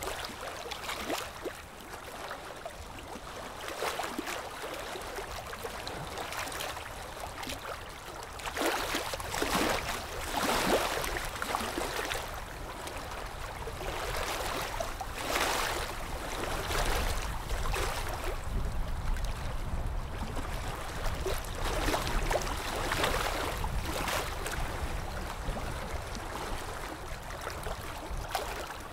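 Ultrasonic dental scaler working along the teeth at the gumline with its water spray, while a suction tube draws off water and saliva. The result is a steady watery hiss that swells several times.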